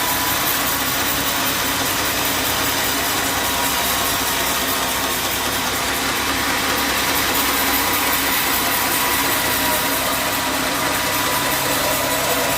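Band sawmill machinery running steadily, an even mechanical drone with a faint hum and no distinct cutting strokes.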